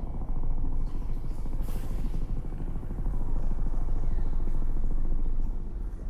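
Dark, otherworldly sound-design ambience: a dense low rumbling drone, with a hissing whoosh sweeping through about two seconds in. It eases off shortly before the end.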